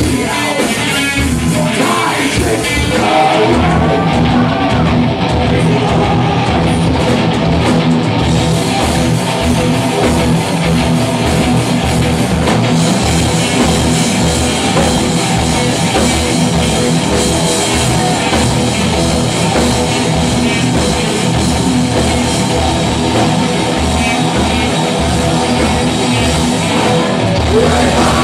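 Live heavy metal band playing at full volume: distorted electric guitars, bass guitar and drum kit through stage amplifiers.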